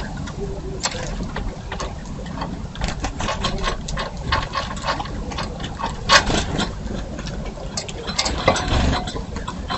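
Birds feeding at a bird feeder: an irregular clatter of pecking and scrabbling clicks and knocks, several a second, with one sharper knock about six seconds in, over a steady low rumble.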